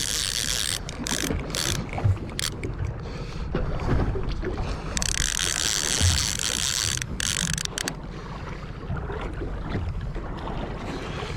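Fishing reel ratcheting and clicking as a hooked coho salmon is fought, over a steady low rumble, with a stretch of high hiss lasting a couple of seconds around the middle.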